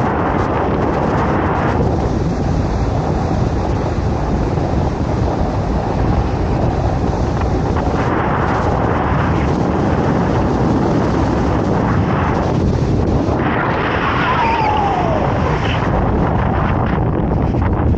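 Wind buffeting the microphone on the open deck of a moving boat, a loud steady rumble, with the boat's engine and wake running underneath.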